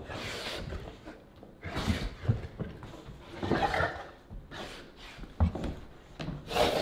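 Adult cane corso and cane corso puppy play-fighting: scuffling of paws and bodies with several thumps, the sharpest about two and five seconds in, between short noisy bursts.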